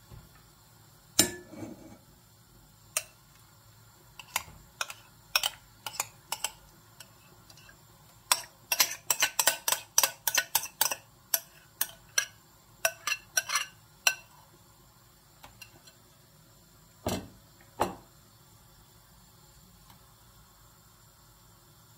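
A kitchen utensil clinking and scraping against glass mixing bowls as a thick white mixture is scraped from one bowl into another: a single knock about a second in, then scattered clicks building to a quick run of clinks around halfway, and two more knocks a few seconds before the end.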